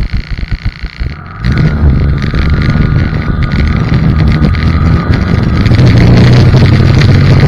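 Snowmobile engine idling with an even pulsing beat, then opened up about a second and a half in as the sled pulls away and accelerates. It settles into a steady, loud drone with wind on the microphone.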